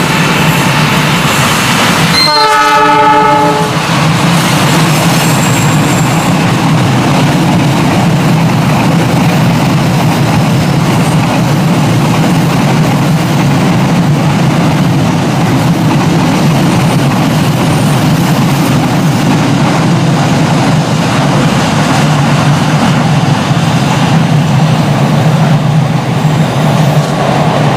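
Freight train of fuel tank wagons hauled by a diesel locomotive rolling past close by, with a steady rumble and wheel clatter. The locomotive's horn sounds once, briefly, about two seconds in.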